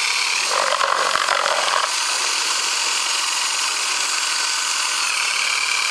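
Cordless drill running steadily at speed, spinning a cement-mixer paddle in a bucket of wort to aerate it after the yeast is pitched. Its high motor whine drops out about half a second in and comes back slightly lower near the end.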